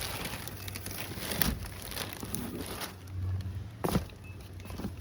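Rustling and handling noise from a handbag and its packaging being handled, with two sharper knocks about a second and a half and about four seconds in, over a steady low hum.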